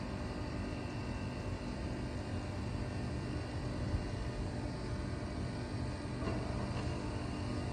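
Steady low hum and rumble of a Waratah electric double-deck train standing at the platform, its onboard equipment running.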